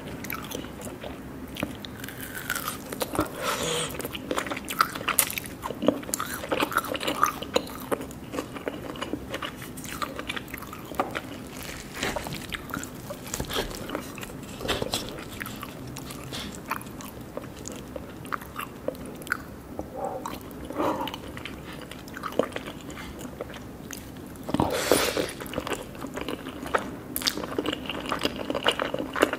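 Close-up crunching and chewing: irregular crisp crackles and clicks, with a denser burst near the end, over a faint steady low hum.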